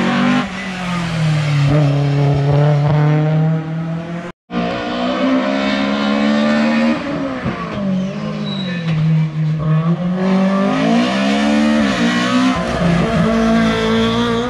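Historic saloon race car engines revving hard up a hillclimb, the pitch repeatedly climbing and dropping back as the driver shifts gears. About four seconds in, the sound cuts out for a moment and then resumes with another car's engine.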